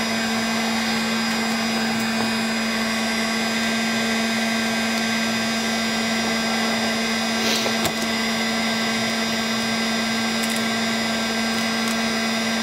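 Handheld electric heat gun running steadily, its fan and motor giving a constant hum with a rushing hiss of air.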